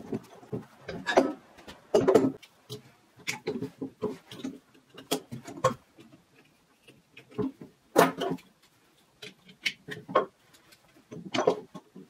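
Metal tools clinking, knocking and briefly scraping against an old steel bench vise as it is worked apart at its handle and main screw collar. The sounds come as a series of separate knocks and short scrapes, the loudest about two seconds in and about eight seconds in, with quiet gaps between.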